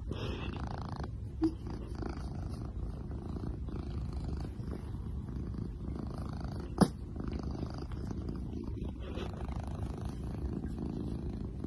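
A cat snoring right on the microphone: a steady low rumble that goes on without a break. One sharp click sounds about seven seconds in.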